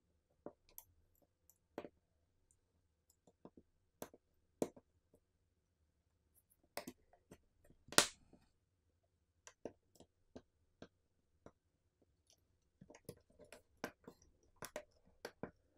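Small plastic-and-metal clicks and taps from a Samsung Galaxy A35 5G being reassembled: flex-cable connectors pressed onto their board sockets and the plastic mainboard cover snapped into its clips. The loudest click comes about eight seconds in, and a quick run of clicks comes near the end.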